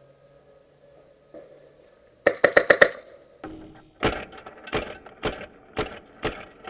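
Airsoft gun firing: a quick full-auto burst of about six sharp shots about two seconds in, then a run of duller, muffled bursts of shots, roughly two a second.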